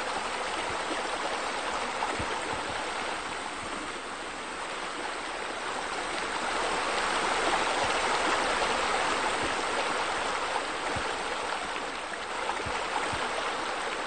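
Steady rush of running water, swelling a little midway.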